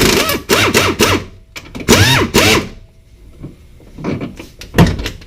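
Power tool spinning a 17 mm bolt out of the top of a rear coilover in two bursts, its pitch rising and falling, followed by a single loud clunk near the end.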